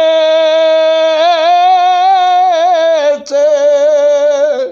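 An unaccompanied man's voice singing a naat: one long sustained note that breaks into a wavering melodic run about a second in. After a short catch near the three-second mark, a second held note stops abruptly at the end.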